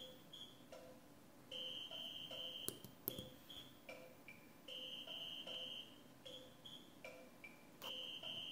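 Short, high-pitched electronic synth notes from FluidSynth, played from an Arduino pushbutton MIDI controller. A quick phrase of beeping tones repeats about every three seconds, with a few sharp clicks.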